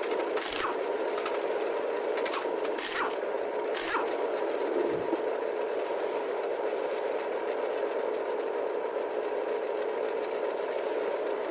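Steady mechanical running noise with a few sharp clicks in the first four seconds.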